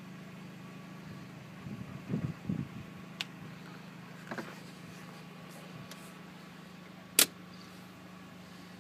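A parked Volkswagen New Beetle Cabriolet with something running, giving a steady low hum. A few faint knocks are heard, and one sharp click comes about seven seconds in.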